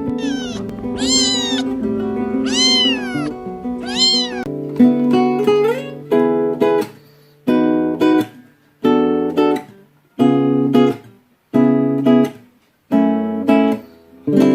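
A kitten meows three times, each meow rising and falling in pitch, over guitar background music. About five seconds in, the music turns to short strummed guitar chords with brief silences between them, roughly one every second and a half.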